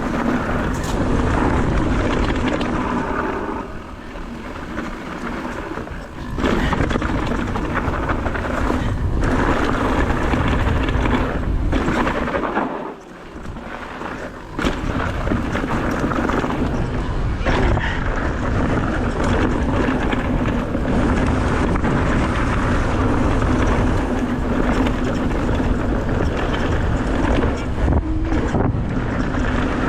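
Mountain bike ridden down a dirt trail: continuous tyre rumble and wind noise on the camera microphone, with frequent knocks and rattles from the bike over rough ground. The noise eases off twice, about four seconds in and again around thirteen seconds, then returns at full level.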